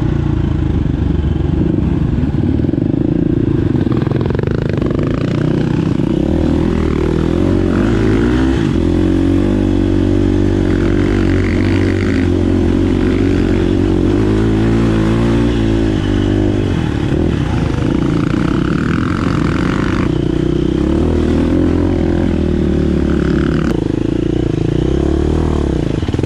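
Enduro dirt bike engine heard from the rider's own bike, running under way with the revs rising and falling as the throttle is worked on a muddy trail, with some rattle from the chassis.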